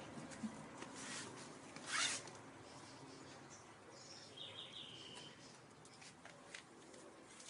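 Puppies scuffling at play on a tile floor: faint scratches and clicks, with one short scratchy rasp about two seconds in. A bird chirps a few times in the background a little past the middle.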